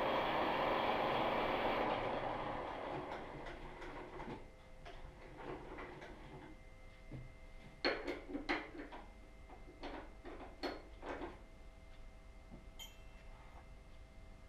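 Milling machine with an angle head running, its noise fading away over the first four seconds or so. Then a run of light metallic clicks and taps as hands work at the drill chuck and workpiece, several close together about eight seconds in.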